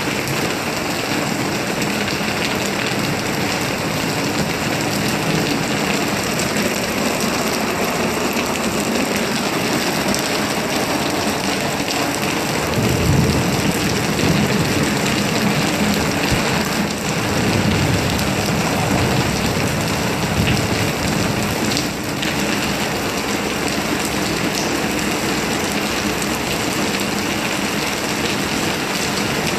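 Steady rain falling. A low rumble swells up twice around the middle.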